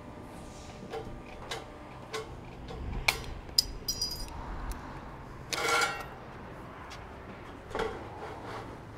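Aviation snips cutting the end of a steel barge capping flashing in a few short clicking snips, then the thin sheet steel clinking and rattling as it is handled. A louder scrape of sheet metal comes about two-thirds of the way in, and another near the end.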